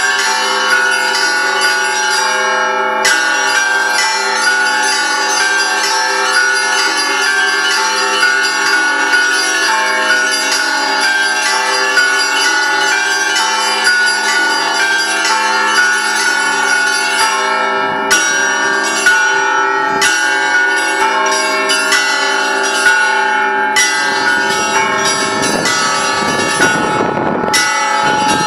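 Russian Orthodox church bells ringing together in a continuous peal: frequent strikes layered over the lingering ring of many bells of different pitches.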